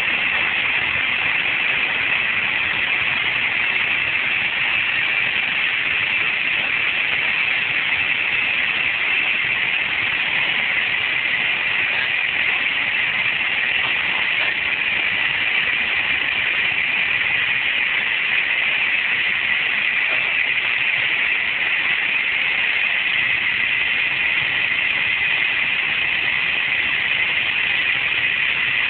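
Steady engine and propeller noise with rushing airflow, heard inside the cockpit of a Grob light aircraft in flight.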